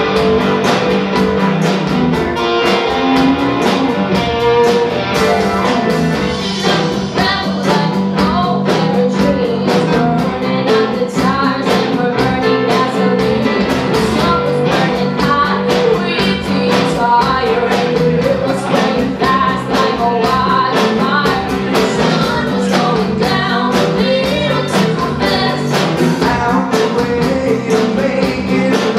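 Live country-rock band playing: electric guitar, bass guitar, keyboard and drum kit to a steady beat, with a voice singing over the band for most of the stretch.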